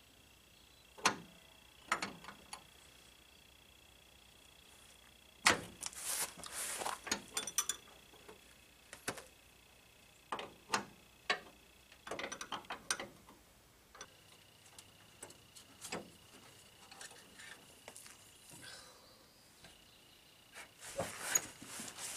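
Wrenches and metal fittings clinking and knocking at irregular intervals as a fuel filter is worked loose under a pickup truck. Busier rattling and handling about six seconds in and again near the end.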